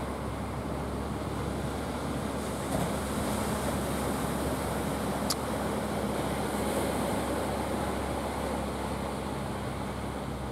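A wooden fishing boat's engine running steadily as the boat motors past under way, a low even hum over the wash of water and wind. A single short click about five seconds in.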